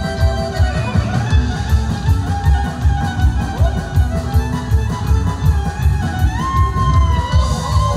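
Live band playing a kolo dance tune: a violin carries the melody over electric guitar and bass with a steady drum beat.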